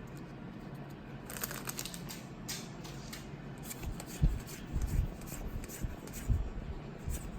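Trading cards and foil booster packs being handled: short papery rustles and flicks, then several soft low thumps as they are set down on the table.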